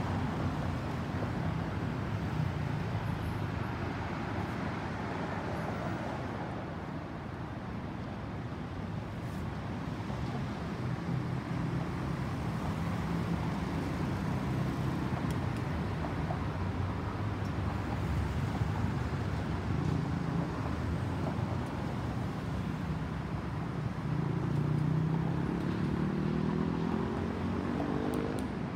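Distant rumble of a Boeing 737-800's CFM56 jet engines as it climbs overhead, blended with steady road-traffic noise. About 24 seconds in, a road vehicle's engine rises in pitch as it accelerates.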